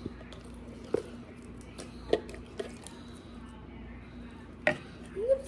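Slime being squished and worked by hand, with a few short sharp sticky pops at irregular spacing.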